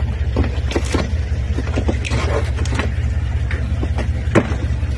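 A claw hammer knocking at and breaking through a boat's deck floor into its false bottom: irregular sharp knocks about one a second, the loudest near the end. A steady low drone runs underneath.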